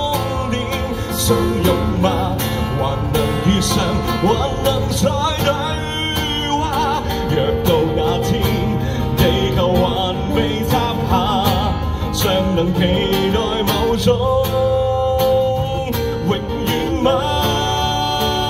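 Live acoustic guitar strummed under a wavering sung melody in a slow Cantopop ballad.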